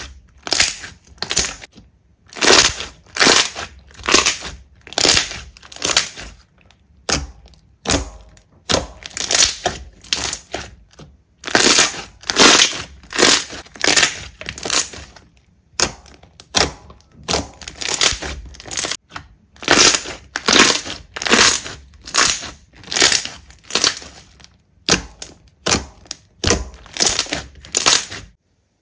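Slime being pressed and squeezed by hand, a run of short noisy bursts about two a second with a few brief pauses.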